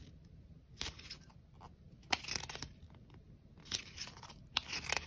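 Faint, intermittent paper rustling and crinkling as a small booklet is handled and its pages turned, a few short rustles spread out with a brief cluster about two seconds in.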